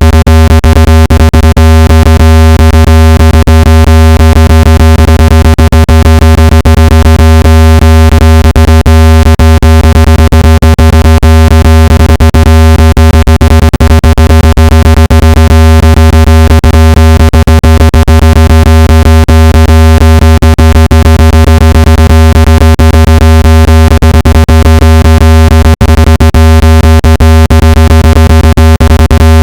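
Very loud, steady deep buzzing tone with many overtones, broken by frequent clicks: a synthetic water-eject tone played through a speaker to vibrate water out of it.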